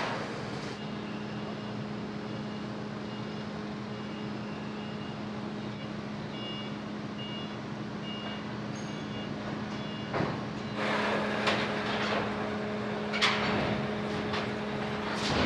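A vehicle's reversing alarm sounds a steady series of short high beeps over the constant low hum of the ship's machinery. About ten seconds in the beeping stops, and louder, uneven vehicle noise with sharp peaks takes over as vehicles move on the quay.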